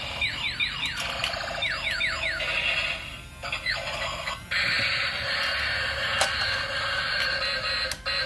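Battery-powered transforming robot truck toy, Optimus Prime style, playing its electronic sound effects through its small speaker: a run of quick falling laser-like chirps at first, then a steady electronic buzzing from about four and a half seconds in.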